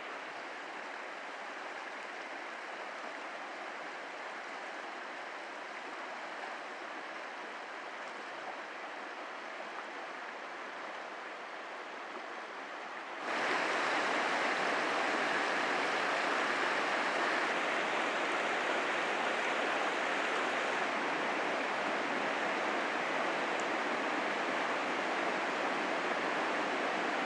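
Steady rushing of whitewater river rapids over rocks. It gets suddenly louder about halfway through.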